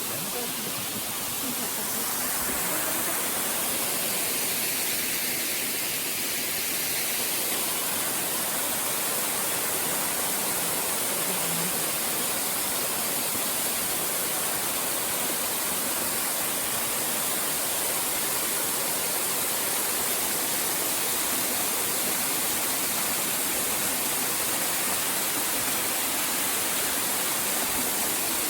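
Waterfall pouring steadily: an even, unbroken rush of falling water, strongest in the high tones.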